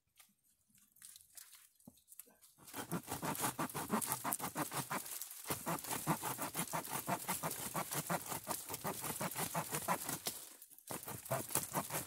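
Omniblade multitool's saw blade cutting a dead branch with fast back-and-forth strokes, a steady rasping run that starts about two and a half seconds in, dips briefly, stops near the end and picks up again.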